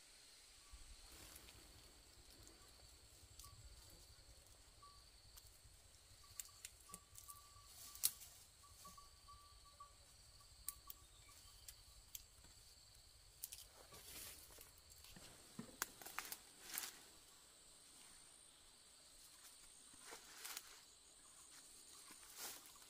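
Faint outdoor ambience of insects calling with a steady high pitch, broken by scattered short clicks and rustles. The sharpest click comes about eight seconds in, and a run of rustling comes about two thirds of the way through.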